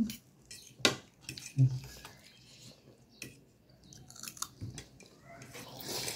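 Forks and a spoon clinking and scraping on a plate of noodles, a handful of separate sharp clicks, with some chewing.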